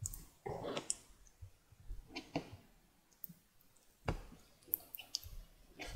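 Faint, scattered clicks and taps of hands handling small plastic toy cartridges in a plastic bowl of jelly; the sharpest click comes a little after four seconds in.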